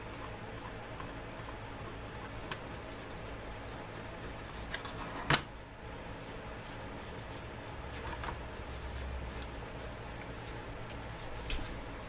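Quiet handling sounds of a revolver being wiped down with a cloth: soft rubbing and a few small clicks, with one sharper click about five seconds in, over a steady low hum.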